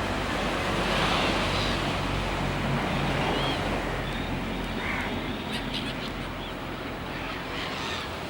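Steady rushing noise with a few faint, brief bird chirps over it.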